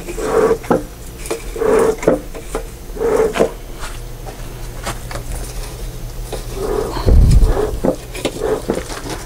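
Bee smoker bellows being pumped, puffing air through burning timothy hay about once every second and a half, each puff with a short hooting tone. A low thump about seven seconds in.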